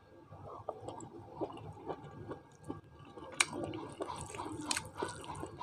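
Close-miked chewing and wet mouth sounds of a person eating boiled chicken with rice, with soft squishing of fingers mixing rice on a steel plate and a couple of sharper clicks.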